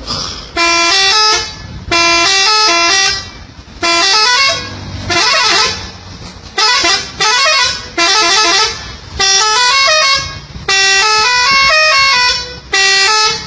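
A truck's multi-tone musical horn blowing about ten short blasts, each playing quick stepped runs of notes like a little tune. A low engine rumble runs underneath.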